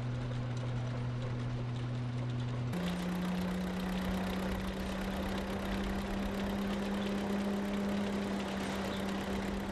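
Belt-driven threshing mill running with the Fordson tractor that powers it: a steady droning hum. About three seconds in, the hum jumps abruptly to a different pitch.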